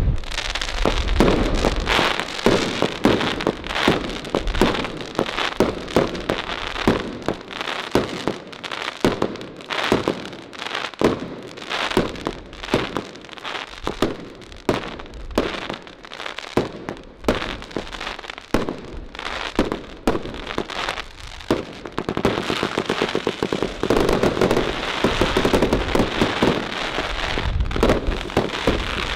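Wolf Fireworks Jackhammer, a 105-shot compound fireworks cake, firing shot after shot in rapid succession with a lot of crackling. After about 22 seconds the shots run together into a denser, almost continuous crackle.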